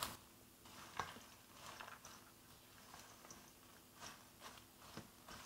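Faint, irregular rustling and crunching as popcorn and nuts are tossed with a wooden spoon in a stainless steel bowl to coat them in caramel, with a sharper tick about a second in.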